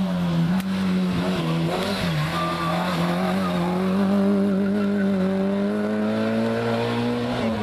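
Peugeot 106 hill-climb car's engine running hard at high revs as it takes a hairpin and drives up the climb. Its pitch dips briefly near the start and again about two seconds in, then rises slowly and steadily as it pulls away.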